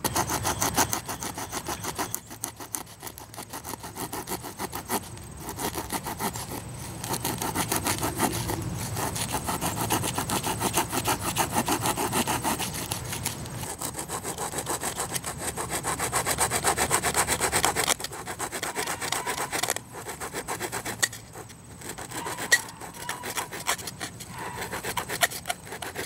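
Small folding wood saw of a Henstrong 9-in-1 multi-plier cutting notches into a thin stick of wood in quick back-and-forth strokes, stopping briefly a few times.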